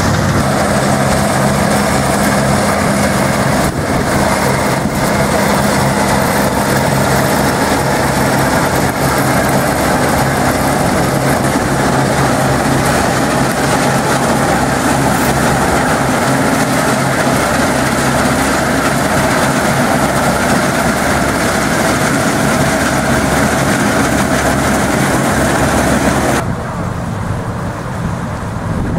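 Farm machinery engine running steadily under load, a dense, even engine sound. It drops suddenly about 26 seconds in to a quieter engine sound with wind on the microphone.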